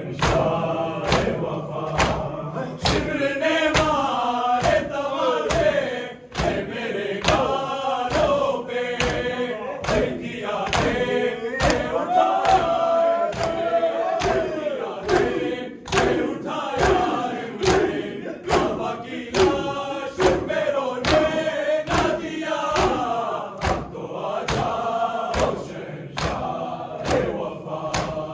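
Men's voices chanting a Shia Muharram noha together, with the whole group beating their chests (matam) in time, a steady run of sharp slaps about one and a half a second.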